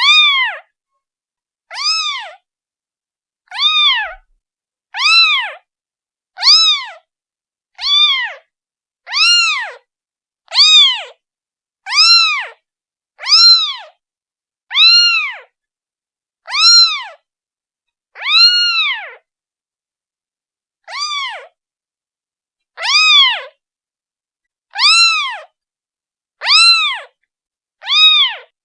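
A newborn kitten, a day old, meowing over and over to call its mother. The calls come about one every one and a half seconds, each a high-pitched meow that rises and then falls in pitch. There is a slightly longer pause about two-thirds of the way through, followed by a fainter call.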